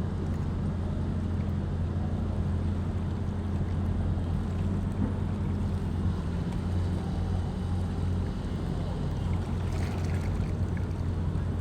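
A steady, low engine drone with a constant hum and a wash of wind-like noise, and a short hiss about ten seconds in.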